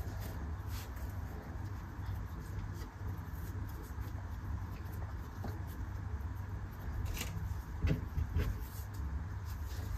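Soft rubbing and a few faint taps from dough being shaped by hand on a board, over a steady low hum.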